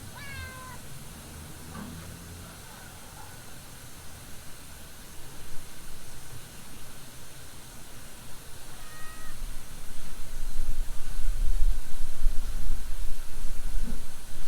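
A cat meows once, briefly, right at the start, with a short, fainter call about nine seconds in. From about ten seconds in, a loud low rumble takes over.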